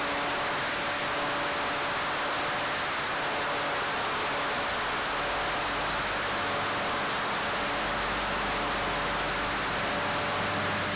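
Steady rushing of wind and airflow over the onboard camera of a Volantex Evolution 2600 glider in flight, with a faint steady hum of a few tones underneath.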